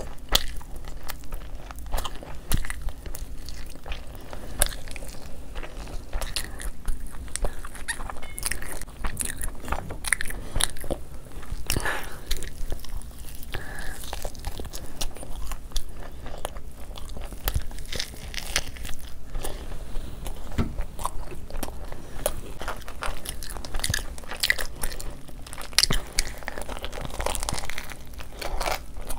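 Close-miked eating: repeated bites, chewing and crisp crunching of chicken and fried food, a dense run of irregular wet clicks and crackles.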